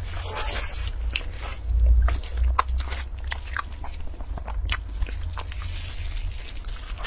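Close-up eating sounds of a soft bun being bitten and chewed, with scattered short crinkles and clicks from the plastic wrap handled in gloved hands.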